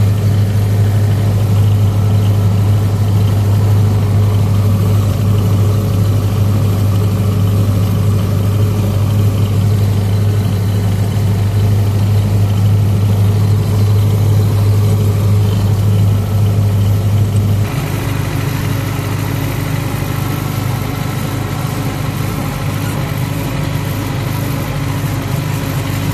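MTZ-82 tractor's four-cylinder diesel engine running steadily, heard from the cab. About two-thirds of the way through the sound changes abruptly, becoming a little quieter and shifting in tone.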